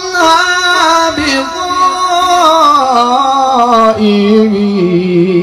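A qari reciting the Quran in melodic tajweed style: a man's voice drawing out one long ornamented line that wavers and slowly falls in pitch, settling on a lower held note near the end.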